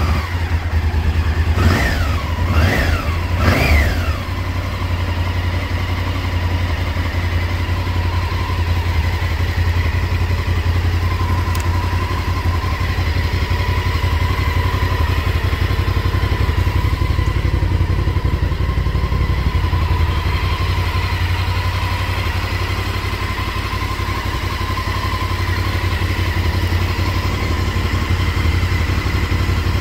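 A 1999 Honda Varadero XL1000's 90-degree V-twin engine is blipped three times in quick succession in the first few seconds, then settles to a steady idle.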